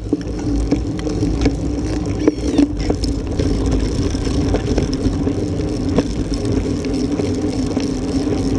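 Wind buffeting and road rumble on a bicycle-mounted camera's microphone while riding a road bike, with a steady hum and scattered small clicks and rattles from the bike going over the road.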